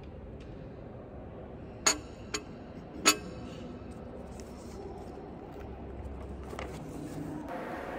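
A porcelain espresso cup clinking on its saucer, three sharp clinks within about a second, over a steady low room hum. Later, a faint rustle of a paper map being unfolded.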